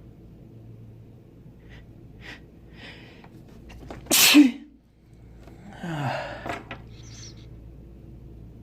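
A person sneezes once, loud and sharp, about four seconds in, after a few short catching breaths. A longer breathy burst follows about a second and a half later.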